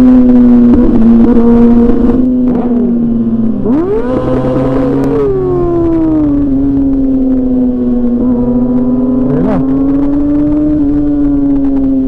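Sport motorcycle engine running at high, steady revs at speed, heard from the rider's seat. Its pitch rises and then eases back down about four to six seconds in.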